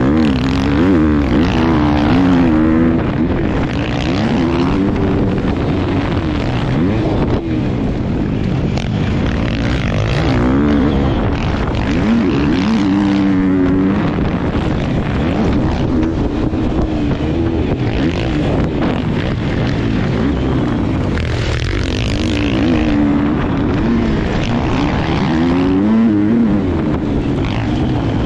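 Motocross dirt bike engine heard onboard, revving up and falling off again and again as the rider accelerates, shifts and backs off for corners.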